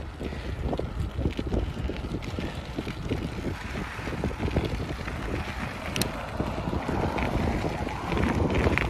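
Wind buffeting the microphone of a phone mounted on a moving bicycle, over a steady low rumble with constant small knocks and rattles as the bike bounces over a rough road, and one sharp click about six seconds in.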